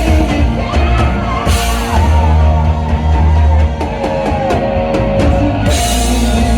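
Rock band playing live, with drum kit, bass and electric guitar and a wavering lead melody line. Cymbal crashes come about a second and a half in and again near the end.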